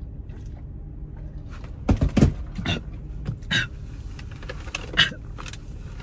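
A woman makes several short, loud throat sounds after a big gulp of fizzy Sprite through a straw, the carbonation catching her; the loudest come about two seconds in, with smaller ones later. A steady low car rumble runs underneath.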